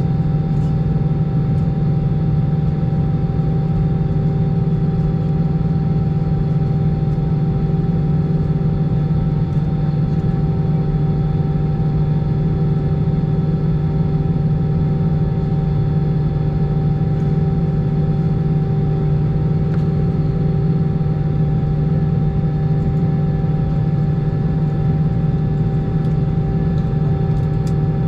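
Steady cabin drone inside an Airbus A319 airliner moving on the ground with its jet engines at idle: a constant low hum with a few faint steady tones above it.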